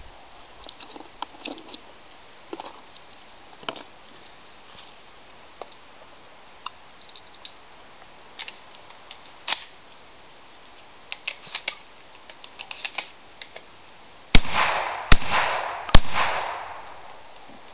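Three shotgun shots in quick succession near the end, under a second apart, each followed by a rolling echo. Before them, scattered quiet clicks and rustles.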